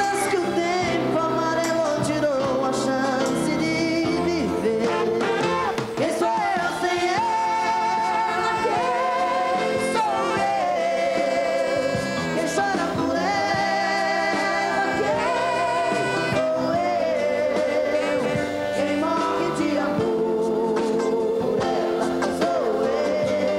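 A sertanejo duo singing a ballad live with a band, the voices holding long notes with vibrato over the accompaniment.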